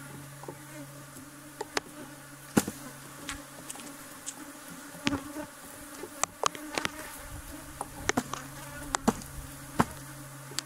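Honeybees buzzing around an open hive in a steady low hum, with scattered sharp knocks and clicks of hard hive parts being handled, the loudest a few seconds in and a cluster later on.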